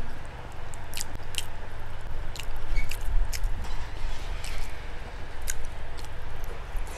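Close-miked chewing of a mouthful of rice and pork, with several sharp wet mouth clicks and lip smacks, over a steady low hum.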